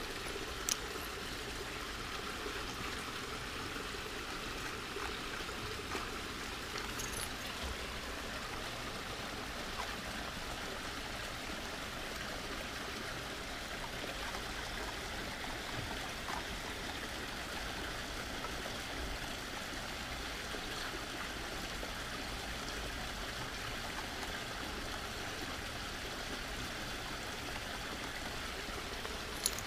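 Steady trickle of running water, with a few faint taps about a second in, partway through and near the end.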